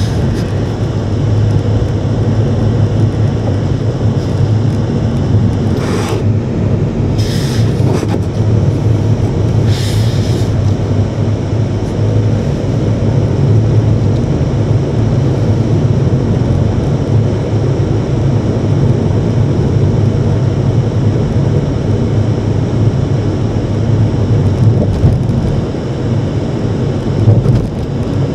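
A car driving on a paved road, heard from inside the cabin: a steady low rumble of road and engine noise. There are a few short hissing sounds about six, seven and ten seconds in.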